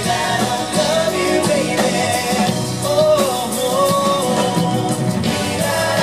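Male vocal group singing live with a pop band backing them, drum kit audible under the voices.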